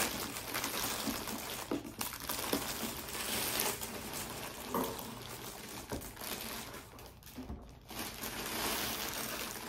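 Thin plastic packaging bag rustling and crinkling as it is pulled off a large electric pressure cooker and bunched up, with a few soft knocks among the rustle.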